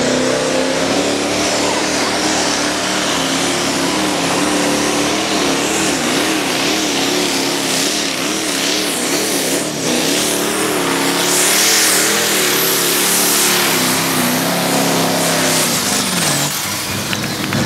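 Competition pulling tractor's diesel engine at full throttle under heavy load as it drags the weight sled, its note wavering rapidly up and down as the revs fluctuate. Near the end the note falls away and the engine sound changes.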